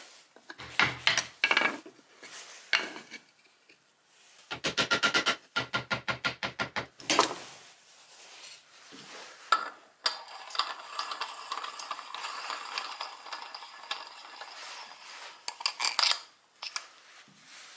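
Hand-working metal and plywood parts at a workbench: a few knocks, then a quick even run of about a dozen sharp clicks, then several seconds of steady metallic rubbing and scraping.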